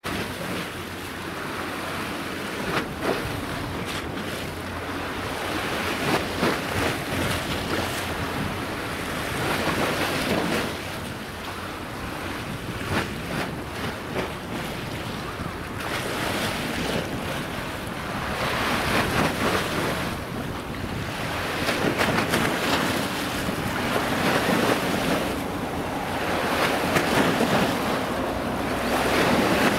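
Strong wind buffeting the microphone over a choppy sea, with waves splashing; the noise swells and eases in gusts.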